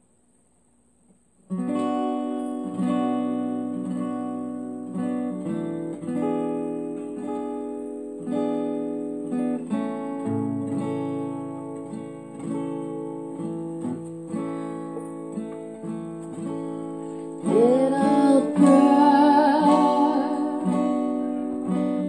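Acoustic guitar playing the introduction of a song, starting about a second and a half in. A voice comes in singing about three-quarters of the way through.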